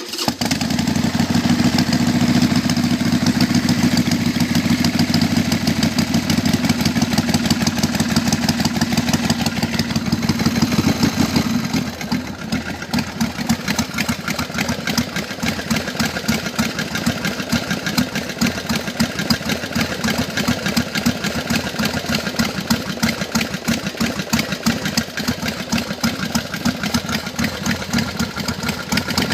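1999 Harley-Davidson Sportster 883, converted to 1200, with its air-cooled V-twin running and a rapid, even mechanical knocking. The owner hears it as a banging in the front cylinder, which his mechanic takes for lifters going bad. The engine note drops a little about twelve seconds in.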